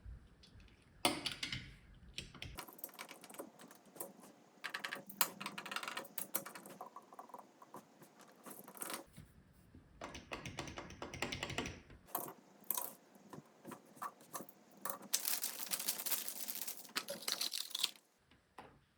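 A small die-cast model car's plastic and cardboard packaging being handled: rapid clicking and crinkling in several bursts with short pauses.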